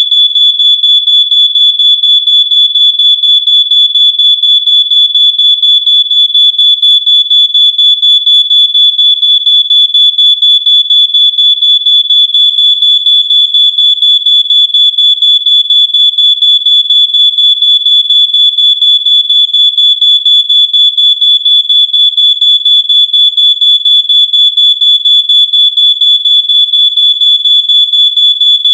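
Smoke alarm sounding in full alarm: a loud, shrill, high-pitched tone beeping very rapidly and without pause.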